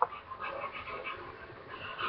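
Faint, soft panting from an animal.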